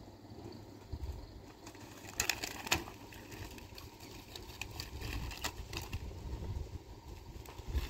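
Packaged goods and plastic-wrapped packs of bottles being handled and set down on the ground: scattered clinks and crinkles, with a cluster of sharp clattering about two seconds in and more around five seconds in, over a low steady rumble.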